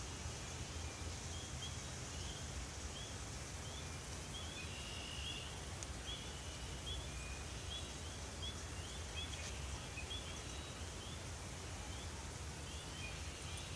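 Outdoor ambience of a distant chorus of short, high, rising chirps repeating every half second to a second, over a low steady rumble.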